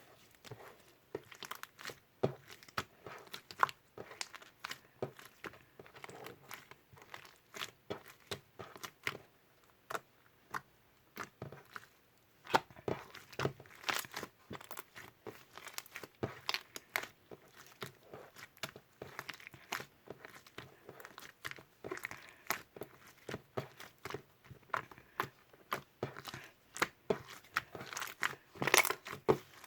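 Pompom slime being squeezed and pressed by hand, giving a dense, irregular run of sharp crackling clicks and pops, loudest near the end.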